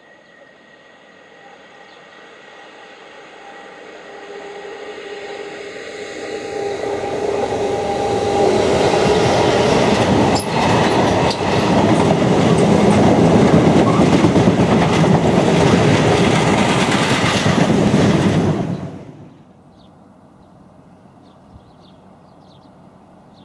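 Class 66 diesel-electric locomotive's two-stroke V12 engine growing louder as it approaches, then a long train of loaded cement tank wagons rolling past close by, a loud rush of wheels on rail with a clickety-clack. The noise cuts off sharply near the end, leaving only faint background.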